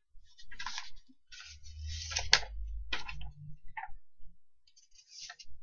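A few clicks and short rustling noises, with one sharp click a little over two seconds in and a low rumble under the middle.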